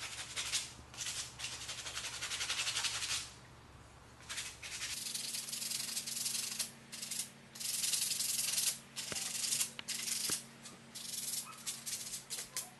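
Rough sandpaper rubbed by hand over a wooden spoon: a long run of scraping strokes, a brief pause, then separate strokes, getting quicker and shorter near the end.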